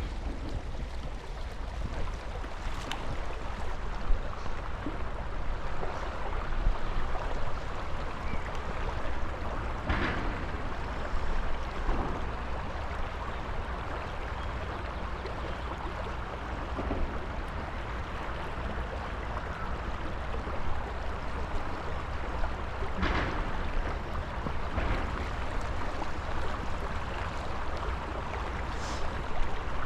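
Steady rush of flowing river water, with a few brief knocks standing out.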